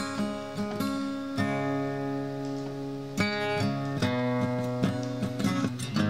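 Background music: a guitar piece of plucked notes and chords.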